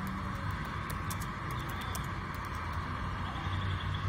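Computer keyboard keys clicking as a short line is typed, a run of about a dozen quick clicks in the first two and a half seconds, over a steady background rumble and hiss.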